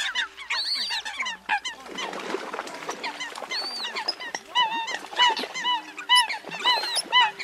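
A flock of Eurasian coots calling to one another: many short, repeated calls overlapping, with a few higher arching calls. About two seconds in there is a rush of water splashing as the birds patter on the water.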